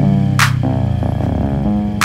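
Electronic background music with a deep bass line and a sharp snare-like hit about half a second in.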